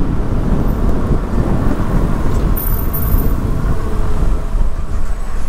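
Steady low rumble of wind buffeting the camera microphone on a moving e-bike, mixed with the idling and creeping traffic alongside.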